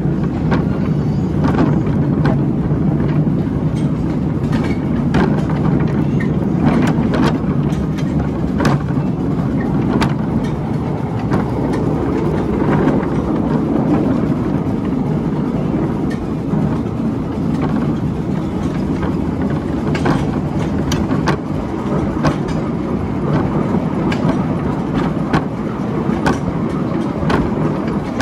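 Miniature steam railway train running along the track, heard from the passenger car: a steady rumble of the wheels, with irregular clicks as they pass over the rail joints.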